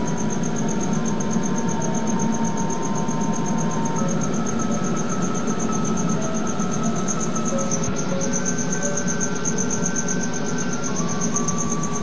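Steady roar of a butane burner flame under the glass lower globe of a siphon coffee maker as the water heats, with a fast high-pitched pulsing over it. Slow piano notes are held faintly in the background.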